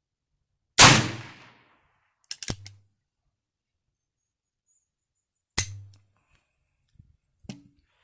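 Two shots from a Heritage Rough Rider single-action revolver in .22 LR with a 16-inch barrel, the first about a second in and the loudest, each trailing off briefly, the second about five and a half seconds in. Several sharp metallic clicks fall between the shots, with a few fainter clicks near the end.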